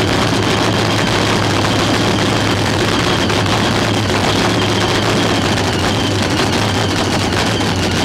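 Nostalgia nitro funny car engine cackling: running at a steady idle through its open zoomie headers, with no revving.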